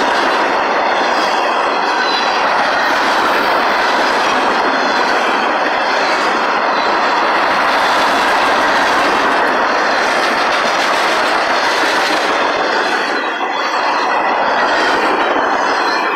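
Freight train's cars rolling past at close range: steady, loud noise of steel wheels running on the rails, with a brief dip in level about thirteen seconds in.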